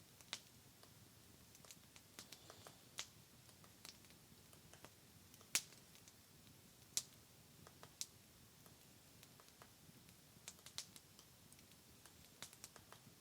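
Faint, irregular crackles and pops from a small wood campfire burning down toward coals, a sharp tick every second or so over quiet background.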